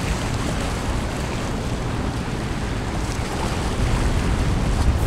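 Wind buffeting the microphone over the steady wash of the sea, with surf breaking on the reef.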